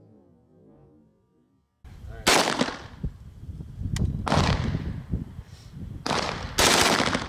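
Short bursts of automatic fire from a .45 calibre machine gun, several loud bursts about two seconds apart, after faint music in the first two seconds.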